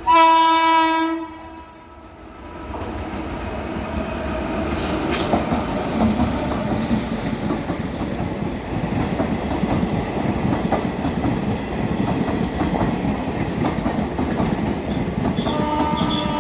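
Indian Railways locomotive horn sounds one loud blast about a second long, followed by the steady rumble and clatter of a train running on the track, building over a couple of seconds. A fainter horn sounds briefly near the end.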